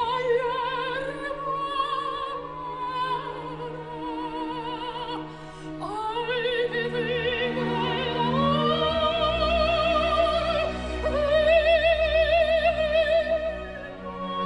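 Soprano singing operatically with wide vibrato over an orchestra. After a short dip about five seconds in, the voice slides up into long, held high notes.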